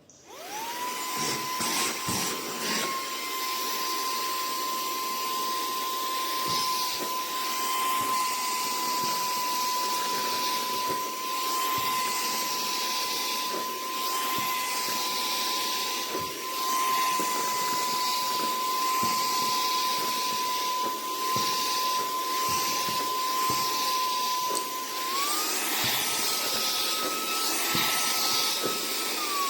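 EBOSSOM cordless handheld vacuum cleaner switched on, its motor spinning up within about a second to a steady high whine over rushing air. About 25 seconds in, the whine steps up in pitch, then drops back near the end.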